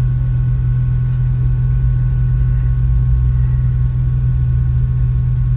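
2017 Ford Mustang's engine idling, a steady low hum heard from inside the cabin, with a faint steady whine above it.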